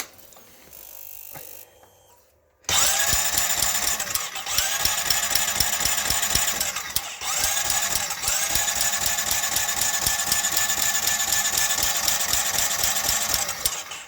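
2008 Honda Rancher ATV engine running with a fast, dense rattling tick, which the owner takes for timing chain rattle. It comes in abruptly about three seconds in, dips and picks back up in pitch twice, and cuts off just before the end.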